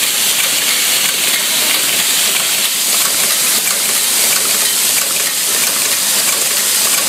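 Zipper-slider assembly machine running, a loud, steady hiss with no clear rhythm or separate strokes.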